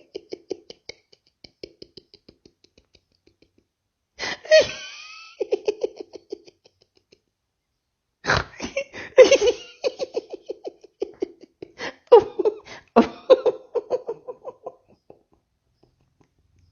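A newsreader's fit of laughter: rapid 'ha-ha' pulses that fade away, break out again with a sharp wheeze about four seconds in, stop briefly, then return louder for much of the second half.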